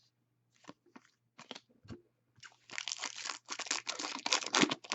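Plastic card packaging crinkling while trading cards are handled: a few light clicks at first, then a dense crinkling from about halfway through that gets louder toward the end.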